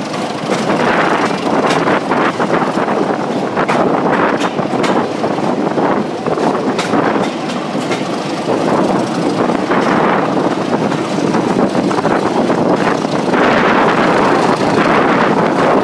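Passenger train running at speed, heard from an open carriage window: the coach wheels clatter over the rail joints in a steady rush of running noise, growing louder near the end.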